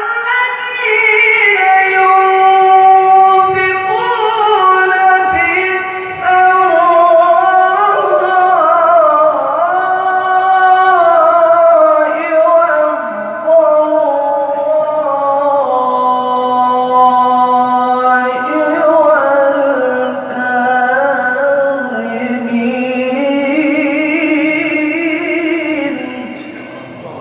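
A qari's voice in melodic Quran recitation, one long ornamented phrase with winding, wavering pitch that sinks lower around the middle and climbs again near the end.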